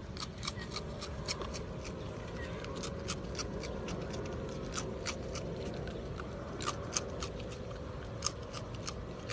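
Raccoon crunching and chewing pieces of ring-shaped cereal, an irregular run of sharp, crisp crunches.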